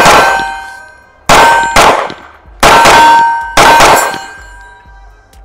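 About five 9mm pistol shots from a CZ Shadow 2 Compact, fired at an unhurried pace roughly a second apart. Each shot is followed by a metallic ringing that slowly dies away.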